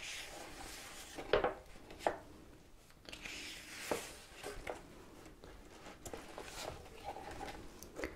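Paper pages of a large blank book being handled, turned and smoothed by hand: soft rustling and swishing, with a few sharper paper taps, the loudest about a second and two seconds in. Near the end the pages are riffled through at their edges.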